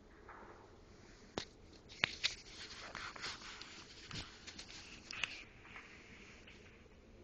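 Tree limbs cracking and snapping under the weight of heavy wet snow: a sharp crack, then a burst of cracks and crackling as wood breaks and branches come down, dying away after a few seconds.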